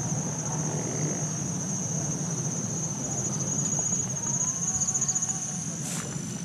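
Insects trilling continuously at a high pitch, a steady, finely pulsing buzz over a low steady rumble, with a single knock near the end.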